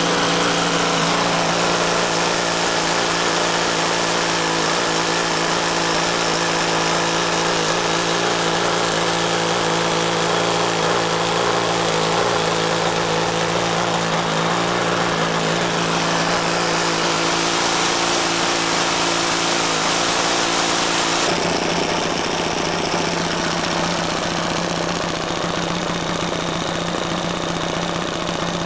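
Two Magnum .30 XL four-stroke glow engines on a model airplane running steadily together during break-in, a loud, even engine note. About three quarters of the way through the tone shifts and drops slightly in level.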